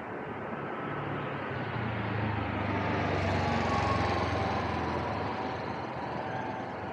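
Motor scooter passing close by on the street: its engine swells to a peak about four seconds in, then fades as it moves away.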